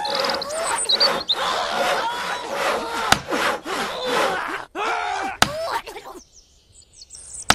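Hand saw cutting through wood in quick, repeated back-and-forth strokes, stopping about six seconds in.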